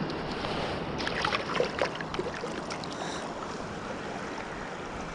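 Steady rush of a trout river's current in the shallows, with a few small splashes about one to two seconds in, from the brown trout in the landing net.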